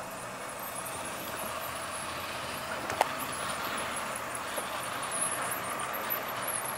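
Hornby OO gauge model of a GNER InterCity 225 running past on sectional track: a steady whirr and rattle from the Class 91 locomotive's motor and the coach wheels rolling on the rails. A sharp click about three seconds in, with a few lighter clicks after.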